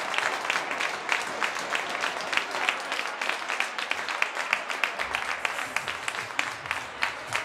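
Ice hockey crowd clapping and applauding a goal: a dense, irregular patter of hand claps that runs on steadily.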